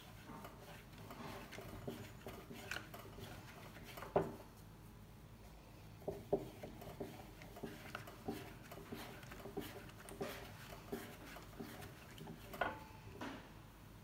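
Thin wooden rolling pin rolling out small rounds of dough on a floured silicone pastry mat: soft rubbing strokes with many light taps and clicks of the pin, the sharpest knock about four seconds in and two more near the end.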